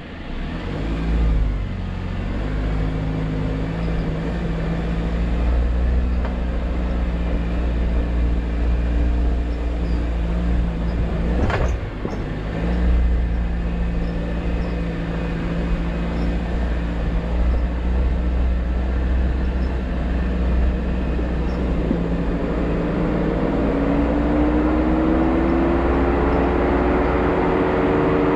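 Jeep Wrangler JL engine running at low revs while the vehicle crawls over a rocky dirt trail, with a single sharp knock about halfway through. Near the end the engine note rises steadily as it picks up speed.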